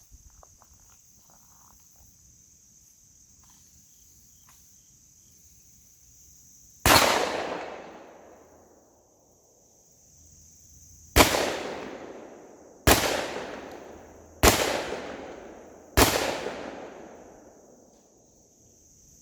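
Five gunshots, each with a long rolling echo dying away: a single shot about a third of the way in, then four more in quick succession, about a second and a half apart. Steady high insect drone underneath.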